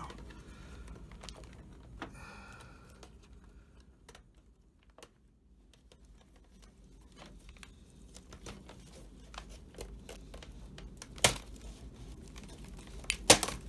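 Light plastic clicks, taps and rustling as a removed laptop keyboard and the laptop are handled, with two sharper clicks near the end.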